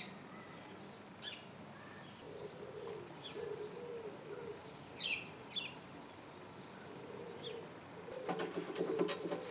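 Outdoor birdsong: short, high, falling chirps from small birds every second or two, with a pigeon cooing low from about two to four and a half seconds in. Near the end, a rapid ticking with a steady hum comes in.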